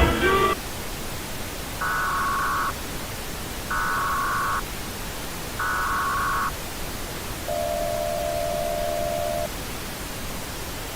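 Emergency Alert System-style broadcast alert tones over a constant hiss: three short bursts of screeching data tones about two seconds apart, like the coded header sent before an alert, followed by one steady lower tone for about two seconds.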